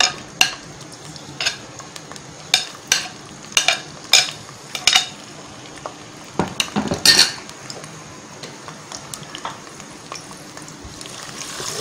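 Sliced onions frying in hot ghee in a cooking pot: a steady sizzle scattered with sharp clicks and pops, most of them in the first five seconds and a few more about seven seconds in. The sizzle swells near the end.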